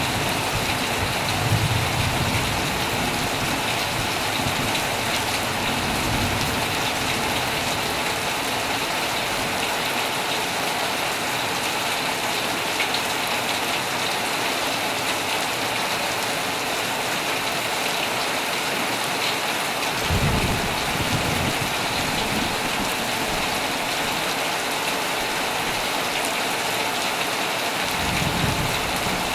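Heavy rain falling steadily on a tent, with low rolls of thunder near the start, about two-thirds of the way through and again near the end.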